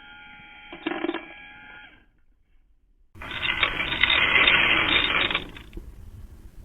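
Automatic cat feeder dispenser: a steady electronic tone with a short clatter about a second in, then about three seconds in a loud mechanical rattling whir for about two seconds as the dispenser runs, settling into a low hum.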